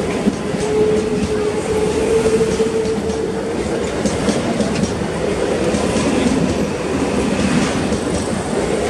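Mumbai suburban EMU local train running past close by as it picks up speed, wheels clicking over the rail joints in quick succession. A steady whine sounds over the rolling noise for the first few seconds.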